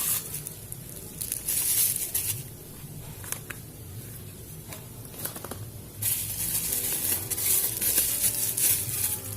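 Plastic packaging crinkling as it is handled and opened, in two longer rustling spells with a couple of sharp clicks between them.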